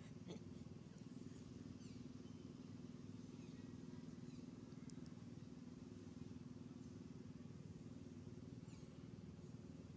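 Quiet outdoor ambience: a faint steady low hum, with a few faint short high chirps scattered through.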